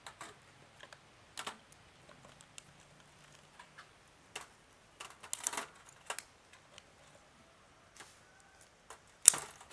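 Hard blue swimmer crab shells clicking and knocking as the crab pieces and upturned carapaces are handled and set down to drain. The clicks are irregular and separate, with the loudest clatter near the end.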